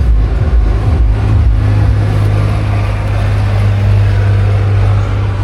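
A steady low mechanical hum, with irregular knocks and clatter during the first two seconds.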